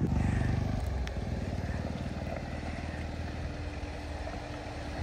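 Jeep Wrangler Rubicon's engine running as the 4x4 crawls slowly over rocky off-road ground, a little louder for the first second and then steady.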